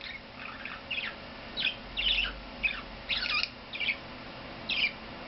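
Budgerigar chirping and warbling: a run of short, high, scratchy calls, about a dozen, one after another with brief gaps.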